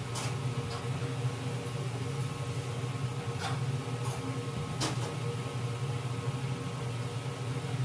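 A steady low machine hum, with three short scraping or clicking sounds about a second in, three and a half seconds in and five seconds in.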